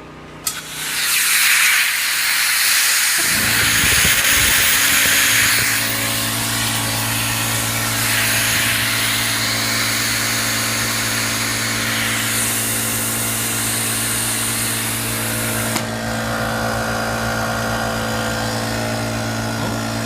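Compressed air hissing steadily out of the back of a Ridgid R350PNA pneumatic palm nailer hooked to the air line, the leak of what the owner takes for a blown gasket; a short click comes just before the hiss starts. From about three seconds in a steady low hum runs under the hiss.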